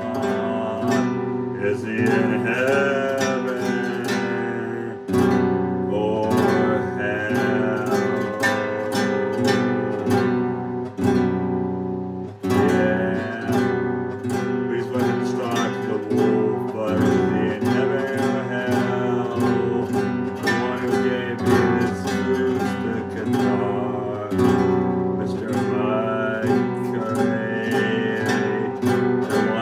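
Acoustic guitar strummed in a steady rhythm through an instrumental passage of a slow song.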